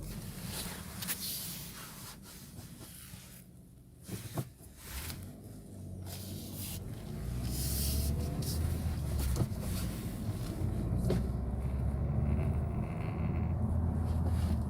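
New Suzuki Vitara running with a low rumble that grows louder about halfway through, with scattered sharp clicks and knocks: the abnormal noise the owner is documenting on the new car.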